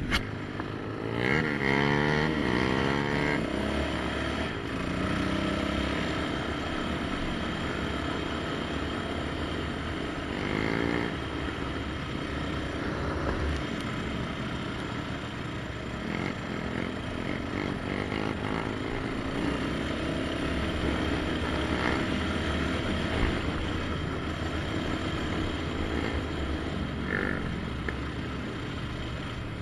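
Yamaha Raptor 700 quad's single-cylinder four-stroke engine running under throttle. It revs up in a rising climb about a second in and again around ten seconds in, and runs steadily between.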